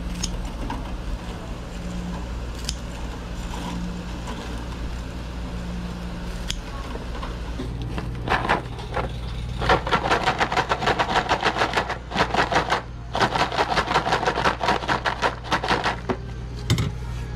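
A steady low mechanical hum from kitchen equipment. About eight seconds in, a fast, even rhythmic rattling joins it and runs on with short breaks.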